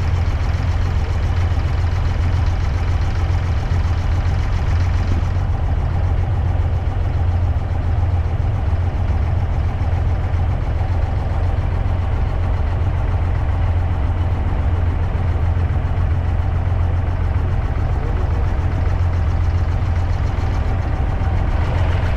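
An abra water taxi's inboard diesel engine idling with a steady low hum.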